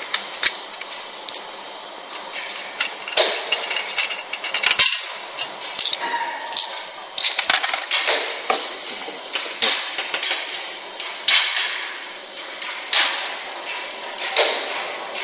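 Irregular clicks, knocks and light clatter as the plastic guide barrier and metal fittings of a rotary bottle filling machine are handled and fitted by hand.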